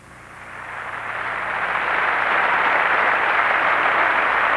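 Congregation applauding, swelling over about two seconds and then holding steady.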